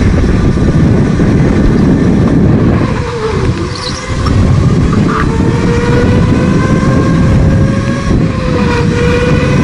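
Go-kart running flat out around a track: a loud, steady rumble with a motor whine whose pitch dips and climbs back twice as the kart slows for corners.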